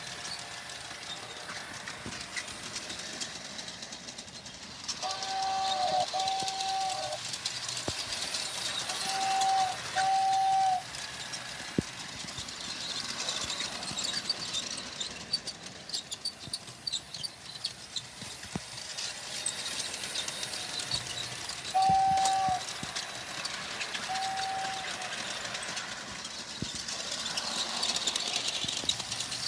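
Train horn sounding two long blasts, a short one and a long one, the grade-crossing pattern, about five seconds in, then two more blasts later, over the steady rumble and hiss of a passing train.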